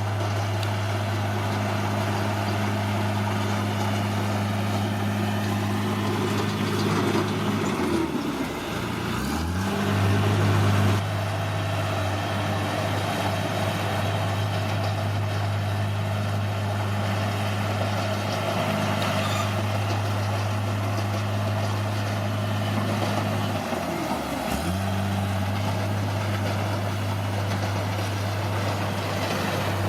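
Bulldozer's diesel engine running steadily. Its pitch sags and recovers twice, about eight seconds in and again near twenty-four seconds, and it runs briefly louder just after the first dip.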